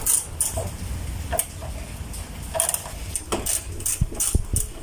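A quarter-inch ratchet with a 10 mm socket clicking as a fender bolt is turned out, in short irregular runs of sharp clicks.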